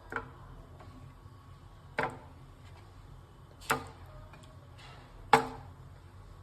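Four sharp knocks against a metal cooking pan, each with a brief ring, coming about every two seconds; the last is the loudest.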